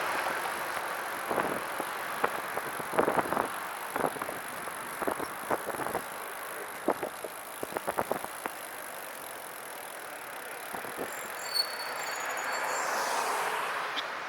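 Catrike 700 recumbent trike rolling along, with irregular rattling clicks and knocks from behind the seat near the rear wheel: a random rattle whose cause the rider has not found. Near the end, a swell of noise rises and fades.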